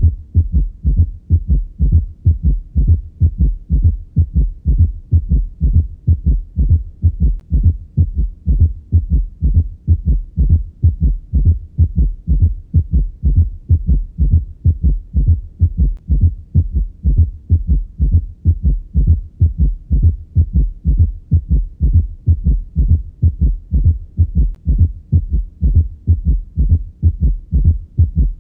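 Heart sounds heard through a stethoscope: low thuds repeating in a steady rhythm, with an extra third heart sound (S3) and fourth heart sound (S4) in each cycle. Together they make a gallop rhythm, the ventricular and atrial gallops.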